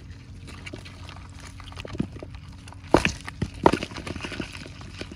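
Small live fish, tilapia and gourami among them, flapping and dropping into a plastic basin as a netting fish trap is shaken out over it. Scattered light taps and slaps, with two louder thumps about three and three and a half seconds in.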